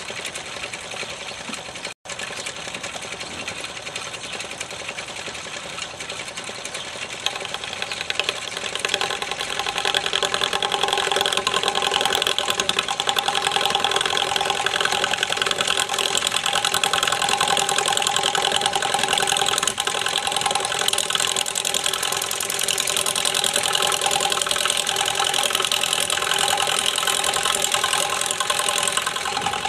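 Home-built wood lathe running at its slow speed, its electric motor driving the spinning square beam through wooden pulleys in bicycle rims: a steady mechanical hum with an even rattle that grows louder about ten seconds in.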